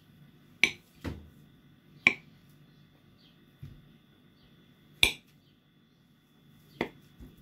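Kitchen knife cutting through boiled, peeled potatoes, its blade knocking on the hard surface beneath the paper towel at each cut: about six sharp clicks at uneven intervals.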